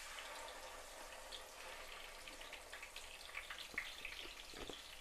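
Hot oil sizzling in a frying pan as marinated chicken pieces are laid into it, a steady hiss with scattered crackles that starts as the first pieces go in.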